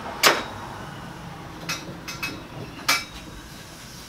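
Polished stainless steel tubes being handled and clinking against one another: about five sharp metallic clinks, each with a brief ring. The loudest comes just after the start and another strong one about three seconds in.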